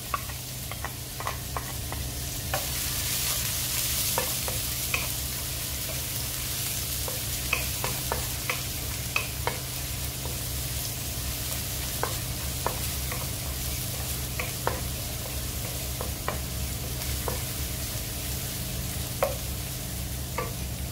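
Chopped garlic and ginger sizzling in hot oil in a non-stick wok, stirred with a wooden spatula that clicks and scrapes against the pan many times. The sizzle swells about two and a half seconds in.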